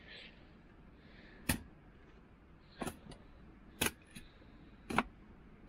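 Hatchet chopping and splitting dry firewood: four sharp chops about a second apart, with a couple of lighter knocks between them.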